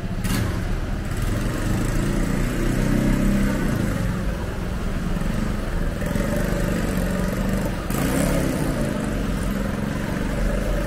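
A motor vehicle's engine running close by on a city street, its pitch rising and falling, over steady traffic noise. A brief sharp click comes just after the start.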